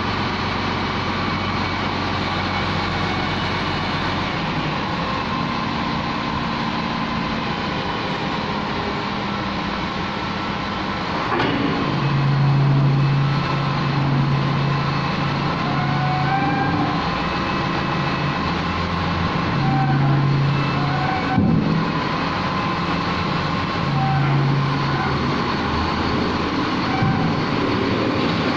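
LiuGong wheel loader's diesel engine running as the machine is worked, its note stepping up and down between lower and higher revs and growing louder from a little under halfway through. A single short knock about three quarters of the way in.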